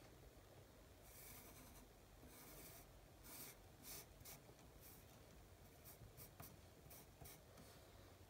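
Pencil sketching on drawing paper: faint scratchy strokes, a few longer sweeps, then a run of quick short strokes after about five seconds.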